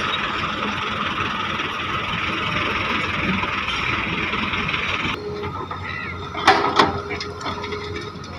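Heavy machinery running steadily as an excavator loads soil into a dump truck. About five seconds in the sound drops abruptly to a quieter hum, followed by two loud knocks close together.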